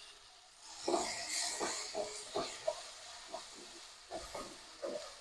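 Diced vegetables and freshly added tomato frying in oil in a nonstick pan, with a soft sizzle. A wooden spatula stirs and scrapes them in short strokes that begin about a second in.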